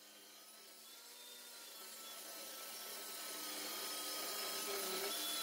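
Homemade table saw running with a steady hum, fading in gradually from near silence.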